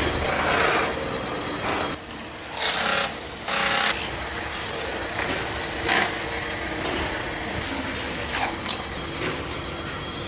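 Workshop tools working aluminium for a homemade kettle: three loud bursts of grinding or scraping noise in the first few seconds, then lighter working noise with a couple of sharp clicks.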